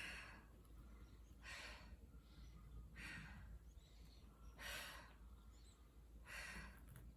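A woman breathing hard from exertion, with a faint, regular breath about every second and a half.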